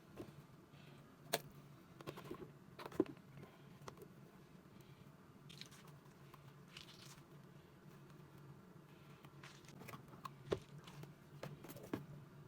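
Faint, scattered taps, clicks and small crunchy sounds of squishy fidget toys being handled during washing, the two sharpest about a second and three seconds in, over a faint steady low hum.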